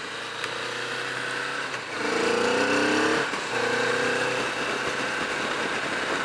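Kawasaki Vulcan S parallel-twin engine running steadily, then pulling away about two seconds in: the revs rise, drop briefly at a gear change, rise again, and then settle to a steady run.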